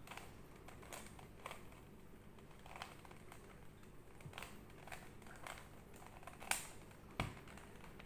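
Plastic 3x3 Rubik's cube being turned by hand: a string of irregular clicks as its layers are twisted, with two louder clicks close together near the end.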